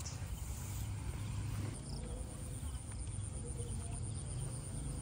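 Crickets chirping in a fast, even trill, over a low rumble on the microphone.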